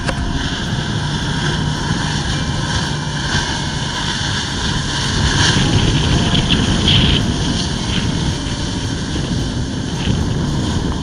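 Jet ski engine running hard and steady to pump water up the hose to a Flyboard, with the rush of the water jets spraying under the rider. It gets louder about six to seven seconds in.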